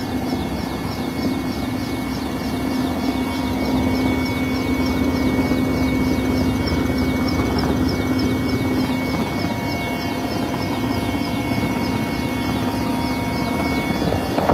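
Helicopter engine and rotor running steadily: a loud, even drone with a faint, evenly repeating pulse over it.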